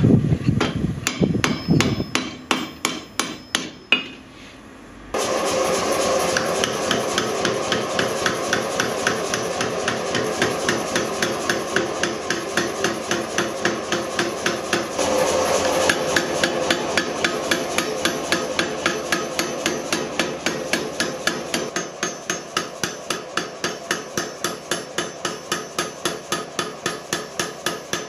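Hand-hammer blows on a long flat spring-steel blade blank on an anvil, about two a second, the bar ringing after each strike. About five seconds in, a power hammer takes over, pounding steadily at roughly three blows a second on a swage tool as it forges a red-hot sword blade.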